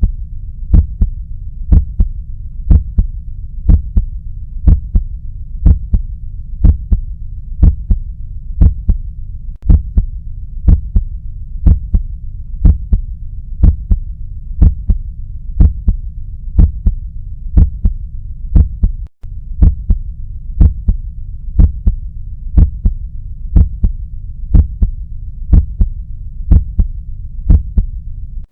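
Normal human heart sounds: a steady 'lub-dub' rhythm of paired beats (first and second heart sounds), about one heartbeat a second, over a continuous low rumble. The sound drops out for an instant twice.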